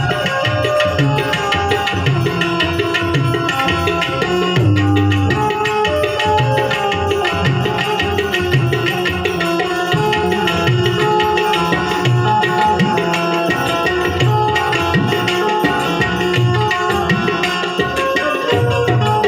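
Instrumental passage of a Gujarati santvani devotional song: a harmonium holds sustained notes over a steady hand-drum rhythm.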